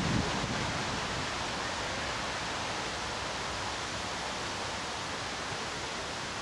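Steady outdoor background hiss with no clear single source; a low gusty rumble of wind on the microphone fades out right at the start.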